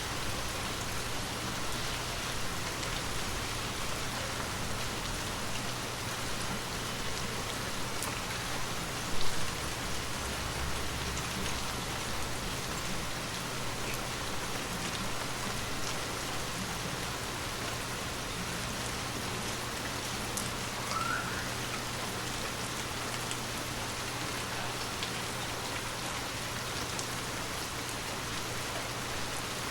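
Gentle rain falling steadily, an even patter of raindrops over a faint constant low hum, with one brief louder knock about nine seconds in.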